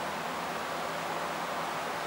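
Steady wash of distant road traffic: an even hiss with no single vehicle standing out.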